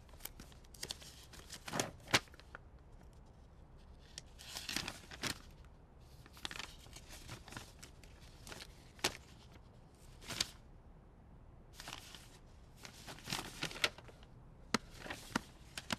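Sheets of paper and plastic folders rustling as they are handled and leafed through, in irregular bursts with a few sharp snaps.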